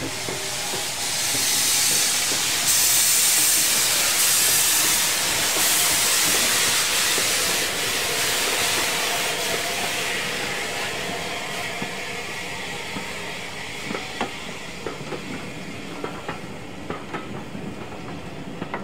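Bulleid 'Battle of Britain' class steam locomotive passing close by with a loud hiss of steam. The hiss fades after about ten seconds as the carriages roll past, their wheels clicking over the rail joints.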